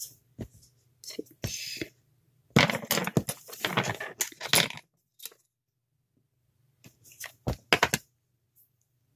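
Hand-work noise from polymer clay sculpting: scattered clicks and taps of tools and clay on the work surface, with a denser stretch of scraping and rustling from about two and a half to nearly five seconds in.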